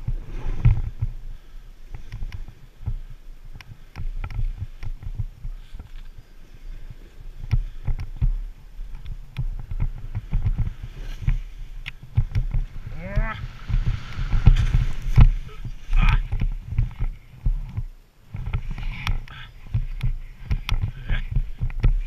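Snowboard sliding through deep snow among trees: a rough, uneven rumble full of knocks and bumps on the board-mounted or body-mounted action camera.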